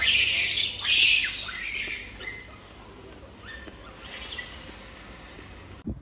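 Infant rhesus macaque squealing: loud, high-pitched screeches in the first second and a half, then fainter squeaks.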